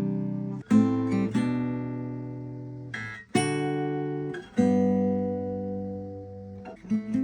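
Seagull S6 Folk acoustic guitar, freshly given a standard setup, strummed: four chords, each left to ring and fade, the last ringing for about two seconds, then a few quick picked notes near the end.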